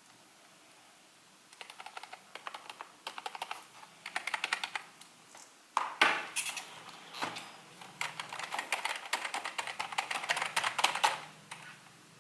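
Typing on a Logitech G213 Prodigy keyboard's Mech-Dome membrane keys: runs of rapid keystrokes starting about a second and a half in, broken by short pauses. A louder knock comes about six seconds in, and the typing stops near the end.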